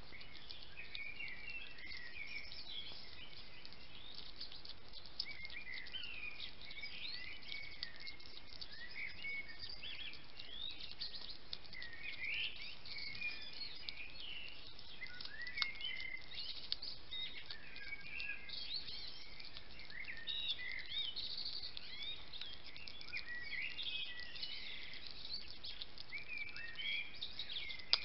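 A hedgehog eating from a dish, with faint wet smacking and crunching clicks as it chews, over almost continuous high, quick chirping calls and a steady background hiss.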